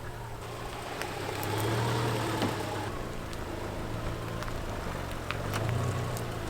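A steady low engine hum, swelling about two seconds in and again near the end, with scattered light clicks over it.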